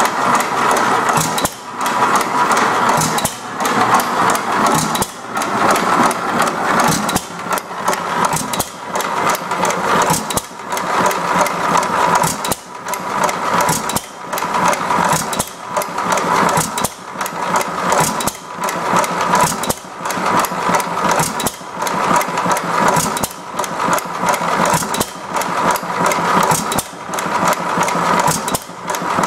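1914 Economy Model D single-cylinder hit-and-miss engine running: a fast, even clatter of mechanical clicks, its loudness dipping briefly every second or two.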